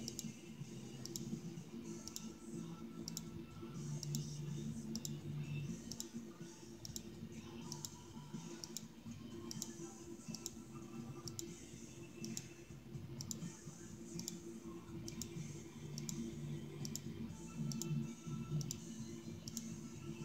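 Light clicks repeating at an even rhythm over a steady low hum.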